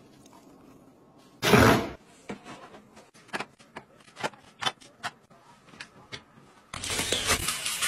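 Pump bottles being set down one after another on a plastic shower shelf: a string of light clicks and knocks. A short loud noise comes about a second and a half in, and a louder, steadier noise starts near the end.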